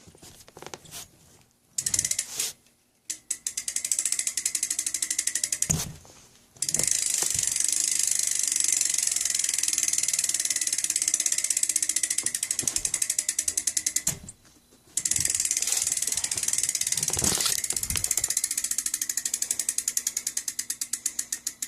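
A BMX rear hub's ratchet pawls clicking in a fast, even buzz as the rear wheel freewheels. There are a few short bursts, then two long runs with a brief pause between them, and the clicking slows near the end as the wheel winds down.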